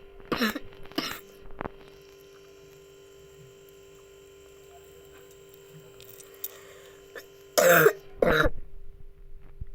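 A person coughing from a cold: two short coughs near the start and two louder ones near the end.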